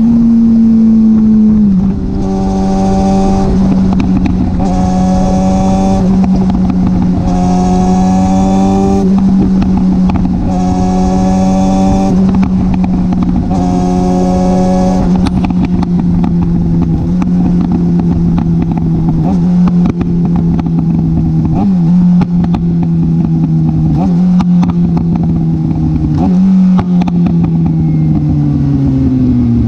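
Kawasaki ZX-6R inline-four through an M4 exhaust, heard close to the muffler, running at steady high revs while riding. Near the end the throttle closes and the revs fall away.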